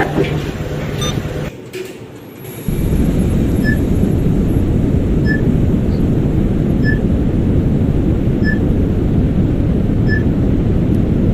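Hotel passenger elevator cab in motion: a steady low rumble of the running lift, with a short high beep repeating about every second and a half. The rumble drops away briefly about two seconds in, then comes back.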